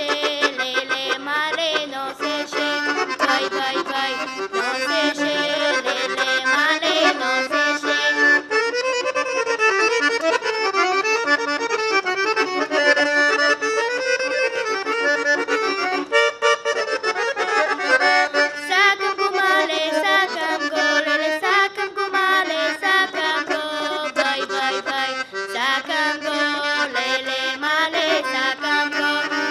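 Piano accordion playing a lively Bulgarian folk tune, with quick ornamented runs in the melody.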